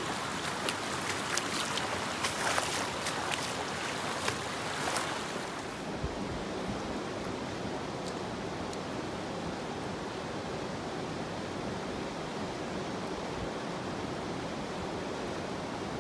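Creek water rushing over rocks, a steady even rush. For the first six seconds many sharp clicks and crackles sound close over it; then only the smoother, duller rush of the current remains.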